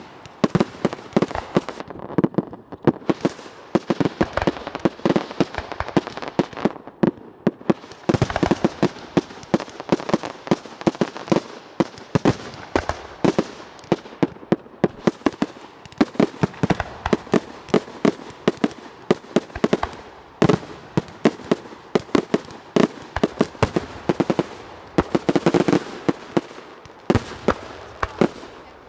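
Fireworks display: a dense, unbroken barrage of sharp bangs and crackles, several a second.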